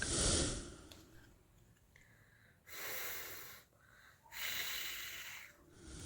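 A voice making the unvoiced 'fff' letter sound of phonics drill four times, each a breathy hiss of about a second with no pitch.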